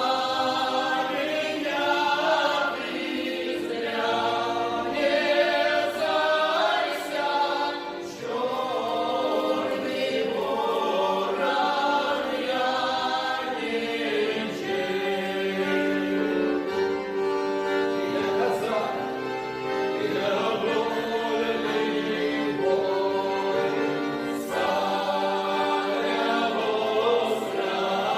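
Folk vocal ensemble singing a song together in several voices, with long held notes.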